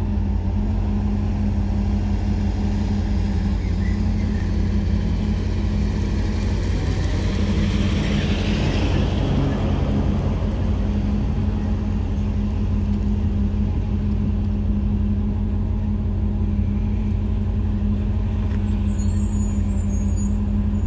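Engine powering a truck-mounted Acker PT-22 core drill rig on a GMC C6500, running steadily at idle. A broad rushing noise swells and fades about eight to ten seconds in.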